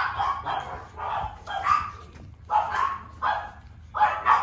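Pekingese puppies yipping and whimpering as they jostle to nurse, a string of about seven short calls.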